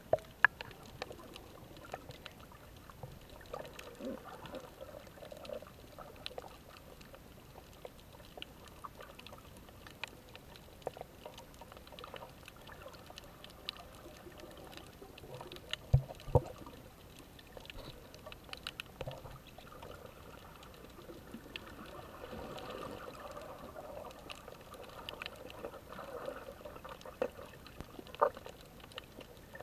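Underwater sound picked up by a diving camera: water moving and bubbling, with many scattered faint clicks and crackles and a few sharp knocks, the loudest about sixteen seconds in.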